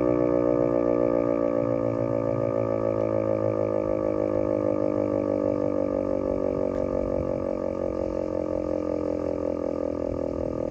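Outdoor tornado warning siren winding down on a test: a chord of tones slowly falling in pitch and fading, with a slight regular wavering in loudness.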